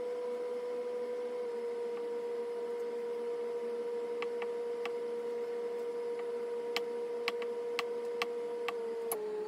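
Cleaver blade tapping down on a plastic cutting board while firm tofu is cut into cubes, a scattering of light clicks in the second half. Under it runs a steady high-pitched hum that drops slightly in pitch near the end.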